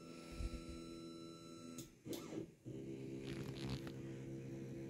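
Sculpfun laser engraver sitting idle after homing, giving a steady low electrical hum. The hum breaks off with a few clicks about two seconds in, then carries on.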